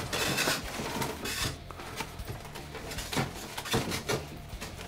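Paper entry cards rustling and shuffling as a hand rummages through a clear acrylic raffle drum, with scattered light clicks and knocks. The rustle is densest in the first second or so.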